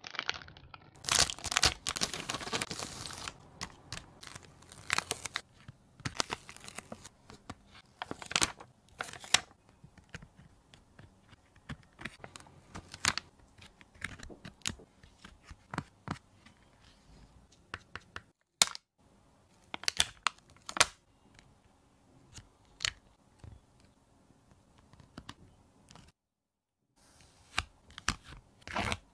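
Plastic sticker-sheet packaging crinkling for a couple of seconds. Then puffy stickers are peeled off their backing with tweezers and pressed onto a card, in short scattered peels, clicks and taps.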